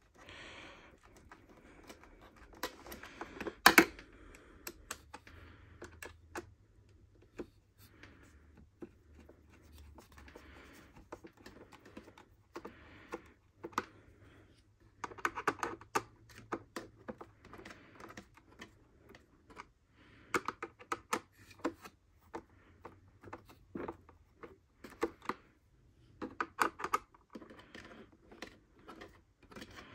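A Phillips screwdriver driving the handle screws into the plastic body of a Bissell upright vacuum: quiet, irregular small clicks and scrapes of the bit turning in the screw heads and the plastic parts shifting, with one sharper knock about four seconds in.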